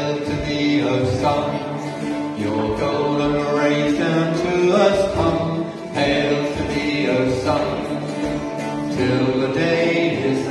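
Voices singing a slow, repetitive devotional chant accompanied by a played banjo, with the church's reverberation around them.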